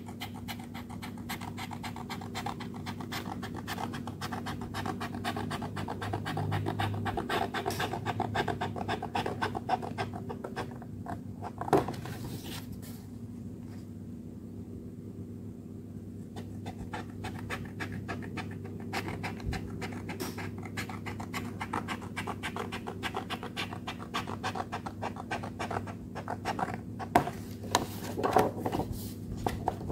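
Scissors cutting a paper sheet in quick, repeated snips as the white border is trimmed off, with a short pause near the middle. A steady low hum runs underneath.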